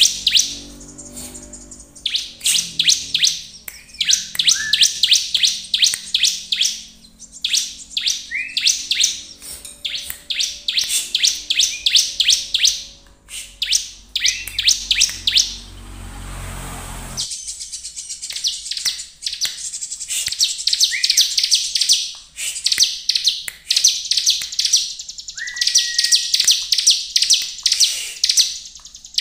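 Bar-winged prinia (ciblek) singing in rapid runs of high, clipped notes, each run lasting a second or two, repeated with short pauses and now and then a lower slurred note.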